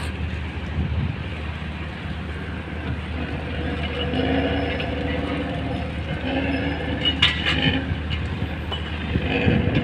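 Steady rumble of a ship on its launching cradle rolling down the slipway rails, with a faint clatter and a few steady metallic tones from about four to seven seconds in.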